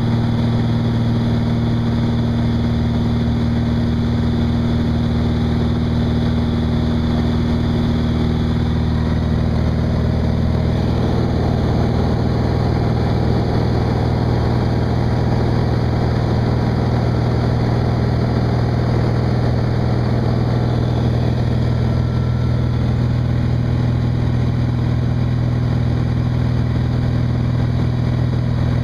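Van's RV-9A light aircraft's piston engine and propeller droning steadily; one higher tone in the drone fades out about nine seconds in.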